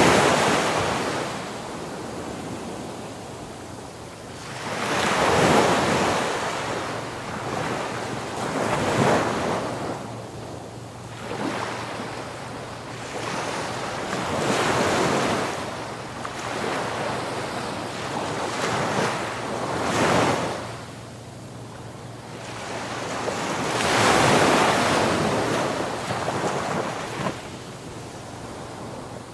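Surf: waves washing in and ebbing, swelling every few seconds, with some wind on the microphone.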